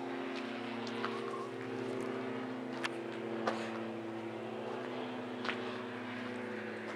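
A steady mechanical drone of several held low tones, engine-like, that drift slightly in pitch, with a few sharp light clicks over it.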